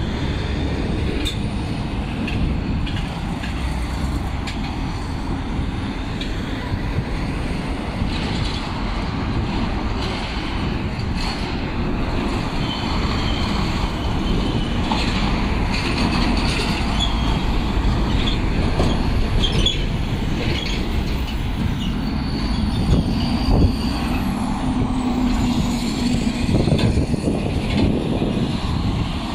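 Busy road traffic passing close by: cars and diesel trucks, among them a container tractor-trailer, a truck pulling an empty container chassis and a cement mixer truck, with steady tyre and engine noise. A few short high squeals sound near the middle.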